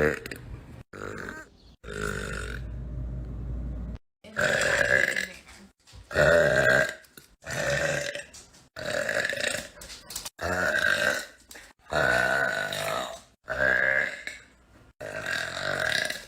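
A young woman burping: a string of about ten loud, pitched burps of around a second each, one after another, with abrupt breaks between them.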